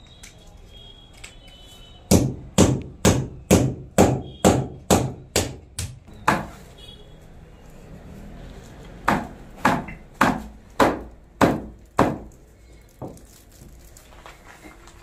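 Hammer blows driving pipe-clamp nails into a brick wall: about ten strikes at roughly two a second, a pause of a few seconds, then six more and one lighter tap.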